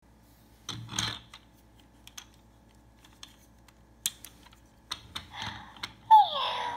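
Plastic clicks and knocks as a robot cat toy is handled and switched on underneath. About six seconds in the toy comes to life with a loud electronic sound whose pitch slides down.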